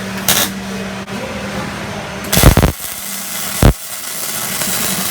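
Electric welding arc struck in short bursts of crackling noise, four in all, the longest and loudest a little past two seconds in, over a steady low hum. The arc is burning a hole through the metal.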